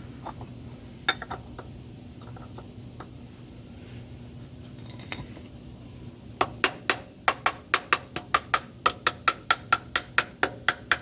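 Metallic clinking: a couple of single clicks, then from about six seconds in a fast, even run of sharp metal-on-metal clicks, about three a second, typical of a hand tool worked on a fastener under the car. A faint steady hum sits beneath.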